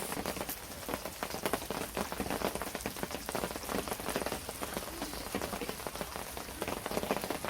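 Steady rain falling on a surface, a dense run of small drop ticks.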